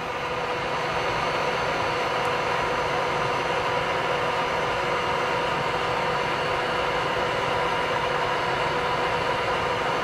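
Cooling fans of an old Pentium III rack server (Compaq ProLiant DL360 G2) running steadily: a constant rushing hiss with several held whining tones.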